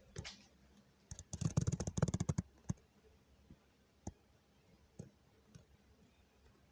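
A rapid run of sharp clicks or taps lasting about a second and a half, followed by a few single clicks spaced about a second apart.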